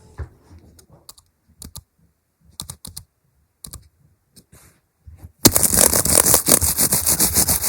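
Keys clicking on a keyboard for iPad: a few scattered key presses, then from about five and a half seconds in, much louder rapid continuous typing.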